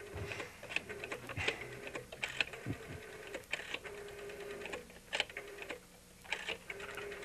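A telephone being dialed: irregular runs of light mechanical clicks.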